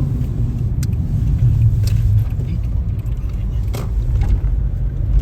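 A steady low rumble with a few faint clicks and rattles over it.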